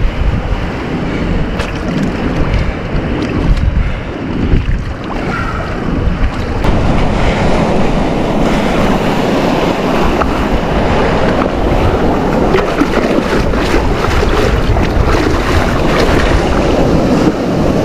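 Surf washing over shore rocks, with heavy wind buffeting on the microphone. From about six seconds in, the close wash and splash of water grows as the giant trevally is held in the surf for release.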